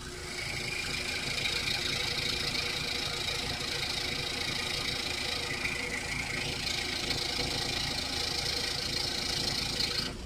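Scroll saw running with a 14-teeth-per-inch Polar No. 7 blade cutting through a paper-backed plexiglass sheet: a steady motor rumble under a rasping hiss of the cut. The blade is throwing free-flowing chips, the sign of a clean cut rather than the blade melting the plastic. The sound drops away just before the end as the cut finishes.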